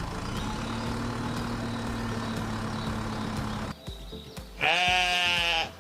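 A sheep bleat sound effect, one call about a second long, near the end. Before it there are a few seconds of a steady hum and hiss.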